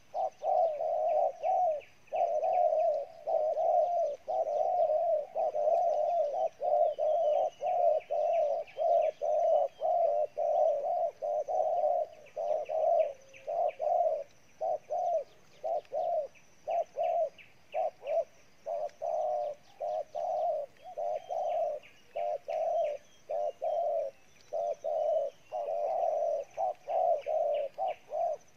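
Spotted dove bow-cooing hard: a fast, unbroken run of short low coos, about two a second with only brief gaps, which stops abruptly at the very end.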